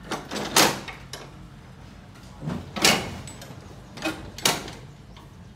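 Three loud scraping knocks about two seconds apart, each a short slide ending in a sharp clack.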